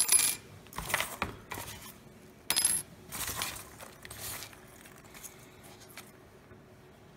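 Small metal pieces clinking twice, at the start and about two and a half seconds in, each with a brief high ring, between bouts of rustling as the cardboard box and its packing are handled.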